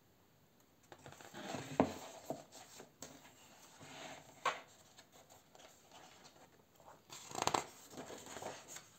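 Paper pages of a paperback colouring book being turned and handled: a few short rustling swishes, the first the loudest, with soft paper handling in between.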